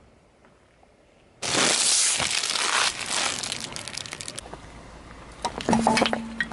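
A car tyre rolling over a tied plastic bag of marshmallows: after a quiet start, the bag suddenly crinkles and crackles loudly as it is crushed, fading away over a couple of seconds. Near the end, a few sharp cracks and a short squeak as a tyre presses onto yellow foam pads.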